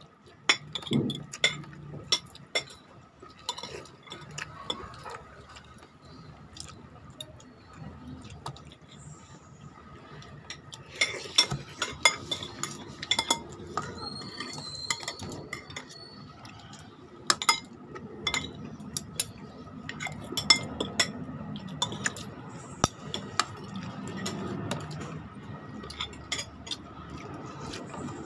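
Metal spoons and forks clinking and scraping against plates while eating, in scattered sharp clinks that come thickest around the middle of the stretch.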